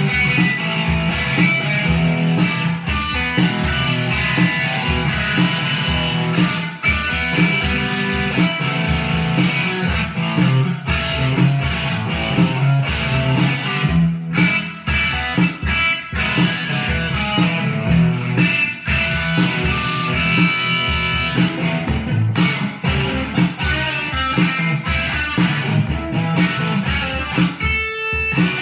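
Guitar music with a steady beat.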